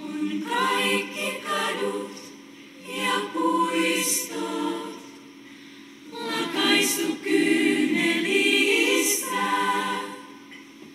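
Girls' choir singing a cappella in three phrases with short pauses between them, with brief hissing consonants near the middle and end of the phrases.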